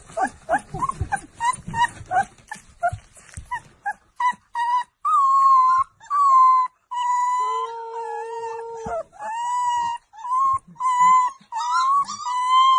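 Husky puppy whining and howling: a run of quick, high yips and whimpers for the first few seconds, then long, drawn-out howls that waver in pitch.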